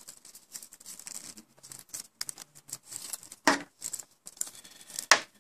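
Rustling and light clicking as a coiled cable is handled and unwound from the small tie that bundles it, with two sharper clicks about three and a half and five seconds in.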